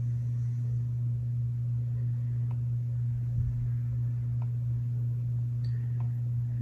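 Steady low electrical hum with a few faint, short clicks spaced out over a few seconds.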